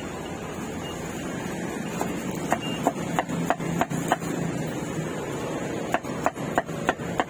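Cleaver chopping meat on a wooden block: two runs of sharp knocks, about three a second, over a steady hum.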